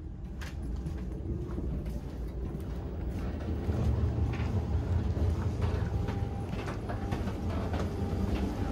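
Running noise inside a moving railjet coach: a steady low rumble with scattered clicks and knocks. It gets a little louder about halfway through.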